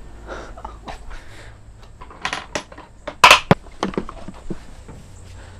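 A series of clicks, light rustles and small metallic clattering knocks, the loudest a single sharp knock a little past three seconds in.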